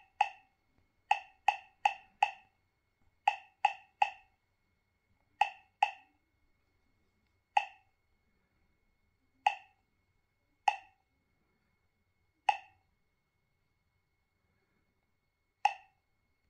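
A touchscreen GPS navigator's key-press sound: a short electronic plop from its small speaker with each tap on the screen, about fifteen identical blips, several in quick runs early on and then spaced out by a second or more.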